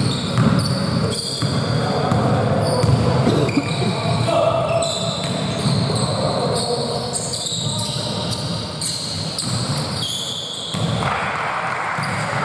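Basketball game play in a gym: the ball bouncing on the court amid players' shouts, echoing in the large hall.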